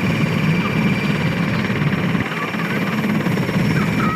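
SA-330L Puma helicopter running on the ground with its twin turboshaft engines and rotors turning. A steady high turbine whine sits over a low, pulsing rotor beat.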